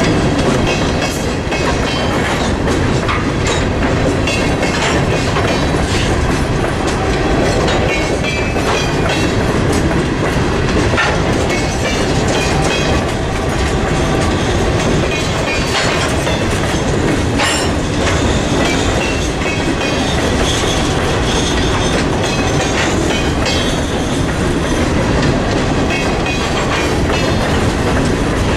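Freight train of covered hopper cars rolling past at close range: a steady loud rumble of steel wheels on rail, with repeated clickety-clack from the wheels crossing rail joints.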